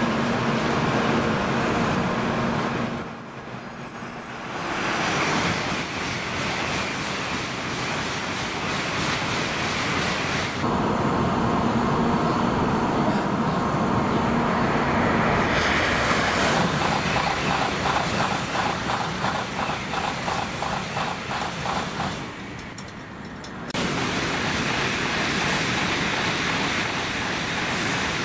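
Tokaido Shinkansen N700-series trains running through the station: a steady rushing of train and wheel noise, broken by several abrupt cuts. A rapid rhythmic clatter comes in from about 18 s to 23 s in.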